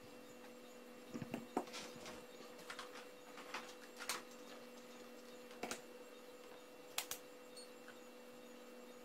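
Scattered small clicks and knocks of hands handling a hard-cased supercapacitor pack and a handheld multimeter on a silicone work mat, over a faint steady electrical hum.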